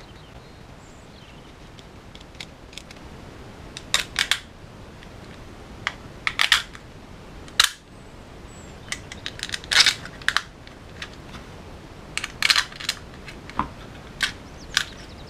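Short, sharp clicks and clatter of a hard plastic RC gearbox case and its metal motor plate being handled and worked with a screwdriver during assembly, coming in scattered clusters.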